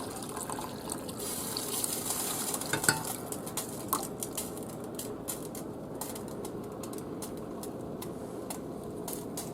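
Liquid simmering in a hot pan around a browned veal roast: a steady hiss, with a couple of knocks of a utensil or pot against the pan about three and four seconds in, then many small pops and crackles of bubbling.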